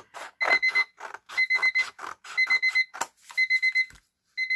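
Digital timer alarm beeping: quick groups of about four high-pitched beeps, repeating about once a second. Short snips of scissors cutting paper come in between.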